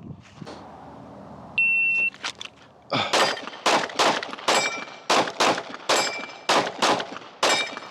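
Shot timer start beep, then a rapid string of about a dozen 9mm pistol shots from a Glock 45, fired two to three a second, with a steel target plate ringing after several of the hits.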